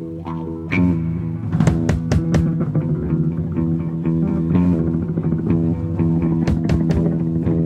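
Live instrumental rock jam: an amplified guitar holds sustained low droning notes. About a second in the playing gets louder, and sharp drum and cymbal hits come in repeatedly over it.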